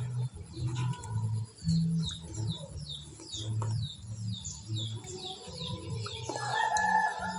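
Chickens and small birds calling: a run of quick falling chirps, about three a second, through the middle, over low repeated tones, with a louder call near the end.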